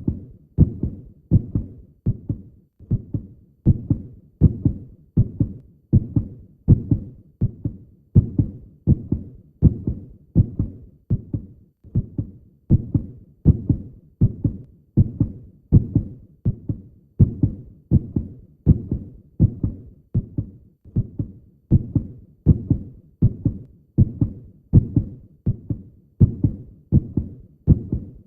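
Heartbeat sound: steady lub-dub double thumps, low and muffled, about one beat a second.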